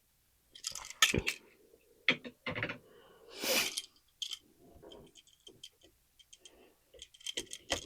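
Handling noises of electrical wiring work on a light switch: scattered sharp clicks and short scrapes as the wires and switch are worked by hand, with a longer scrape about three and a half seconds in.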